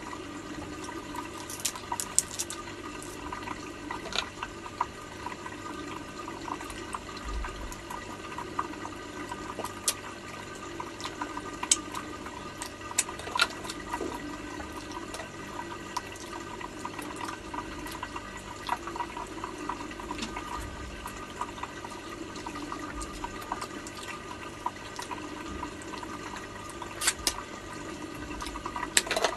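Steady trickle of water from a fish-tank filter, with fixed background hum. Scattered sharp clicks and cracks of crab shell being picked apart by hand and eaten, clustered about two seconds in, around twelve to fourteen seconds, and near the end.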